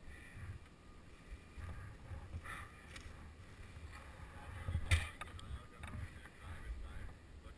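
Low, uneven wind rumble on the microphone, with a few faint clicks and knocks, the loudest about five seconds in.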